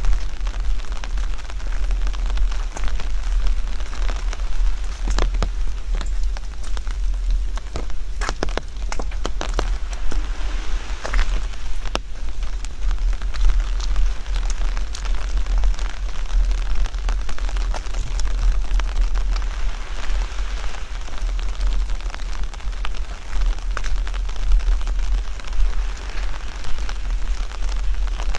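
Steady rain falling, with many sharp drop strikes over an even hiss and a constant low rumble underneath.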